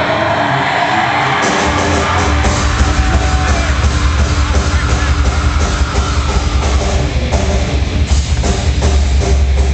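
Loud rock music with heavy drums and bass, kicking in strongly about a second and a half in.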